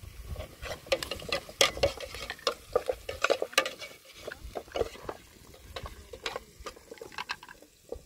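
A utensil stirring and scraping in a cooking pot: quick irregular clicks and scrapes that thin out near the end.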